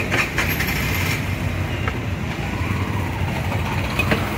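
Steady rumble of road traffic, car and motorbike engines passing close by, with a few short metallic clicks of a spatula against a steel wok in the first second and again near the end.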